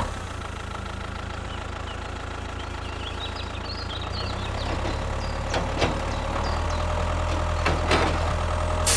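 An engine idling steadily with a low hum, growing slightly louder toward the end, with a few sharp knocks in the second half. Birds chirp briefly midway.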